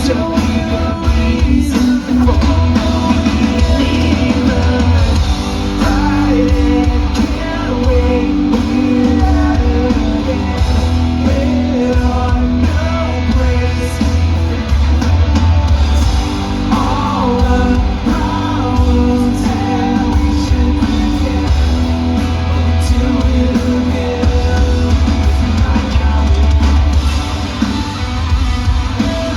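Live rock band playing through a PA during a sound check: electric guitars, heavy bass and drums, with a singing voice over them.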